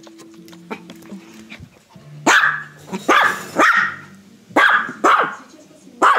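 Small white puppy barking repeatedly, six sharp barks in the last four seconds, at a toy under the sofa that it cannot reach.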